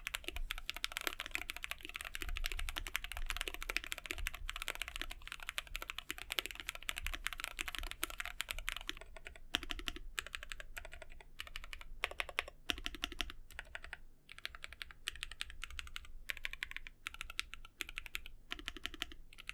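Typing on a Monsgeek M1 mechanical keyboard fitted with Gateron Yellow Pro 2.0 linear switches and Mecha O1 keycaps: a fast, dense run of keystroke clicks and clacks that thins out to slower, sparser key presses about halfway through.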